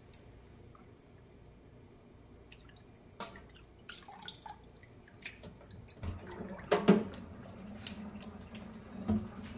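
Water dripping and small taps and clicks in an emptied stainless steel sink as wet greens are picked out of the basin by hand, with one much louder clank on the steel about two-thirds of the way through.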